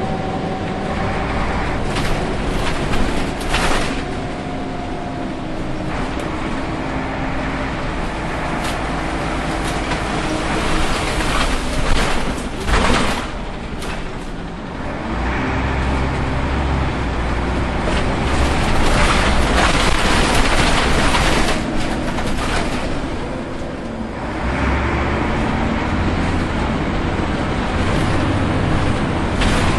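Scania CN94UB Omnicity city bus heard from inside while it drives: the engine and drivetrain run with a steady rumble that swells under acceleration about halfway through and again near the end. Short knocks and rattles from the bus body come early on and around the middle.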